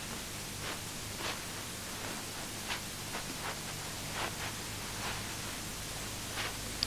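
Steady hiss and low hum of an old videotaped soundtrack. Faint, soft rustles of clothing are scattered through it, a second or more apart, as a woman puts on a dress.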